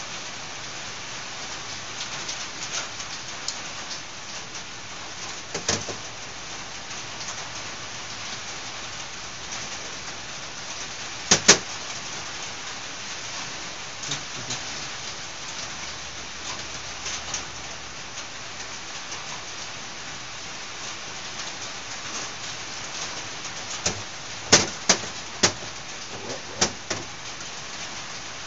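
Clicks and taps of a Honda XR500 carburetor and its small metal parts being handled and worked on at a workbench: a sharp double click near the middle and a cluster of taps near the end, over a steady hiss.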